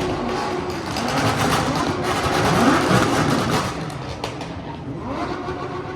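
Engine revving through its exhaust, rising in pitch to a peak about three seconds in, then dropping back.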